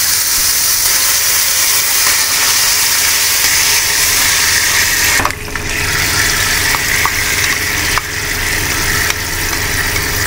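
Soy sauce sizzling loudly as it hits hot oil in a stainless steel frying pan, a steady hiss that drops briefly about five seconds in and then carries on.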